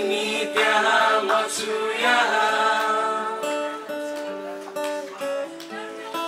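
Acoustic guitar played live with voices singing into microphones; the singing is strongest in the first couple of seconds, then the guitar notes carry on more on their own.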